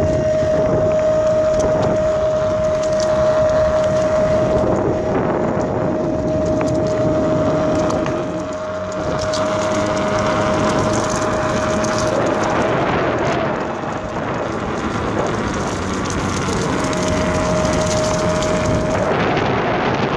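Fiik Big Daddy electric skateboard cruising along a rough sealed track: a continuous rumble of the wheels on the surface and wind on the microphone. A steady motor whine runs underneath, drops out about twelve seconds in and comes back near the end.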